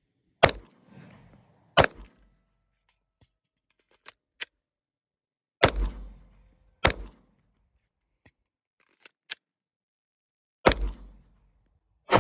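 Glock pistol being fired: five single shots, loosely in pairs a second or so apart, each a sharp crack with a short echo, and another shot right at the end. Fainter sharp cracks come in between.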